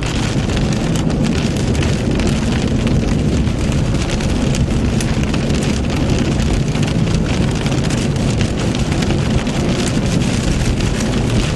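Heavy rain pelting a moving car, heard from inside the cabin: a dense, steady patter of drops on the roof and windshield over the low rumble of tyres on the wet road.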